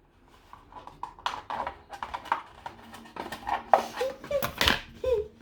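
Irregular light clicks, knocks and rustles of a cut plastic milk bottle and string being handled while the string is threaded through holes. Near the end come a couple of short pitched sounds.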